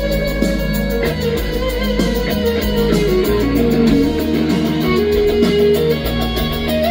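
A live band plays an instrumental passage with no vocals. Guitar leads over a steady beat, with bass notes changing underneath.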